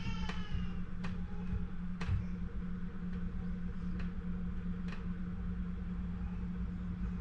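Faint regular ticks about once a second over a steady low hum, with a brief high squeak right at the start.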